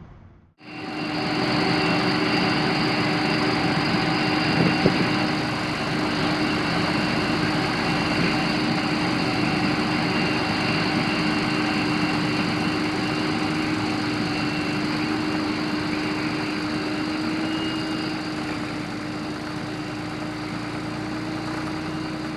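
An engine running steadily with a constant drone and a steady hum, starting abruptly at a cut just after the start and easing slightly quieter toward the end.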